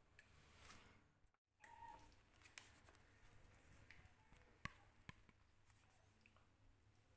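Near silence: faint room tone with a few soft clicks and taps as kittens scuffle on a hard floor.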